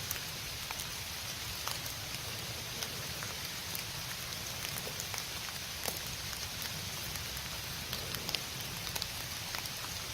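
Steady rain falling in woodland, with many individual drops ticking irregularly on nearby surfaces.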